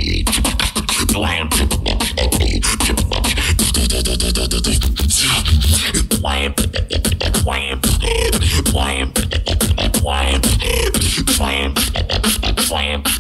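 Live battle beatboxing through a microphone and PA: fast percussive kick, snare and click sounds over a continuous deep bass, with pitched vocal tones woven in around the middle.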